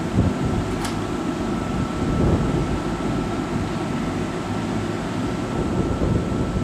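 Kintetsu 15200 series "Kagiroi" train standing at the platform, its on-board equipment humming steadily with a low rumble and a faint high whine. There is a brief click about a second in.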